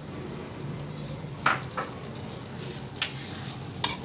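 Turnip and meat curry cooking in an aluminium pressure-cooker pot with a steady sizzle, while chopped coriander is stirred in. A few sharp clinks of a utensil against the pot sound through it.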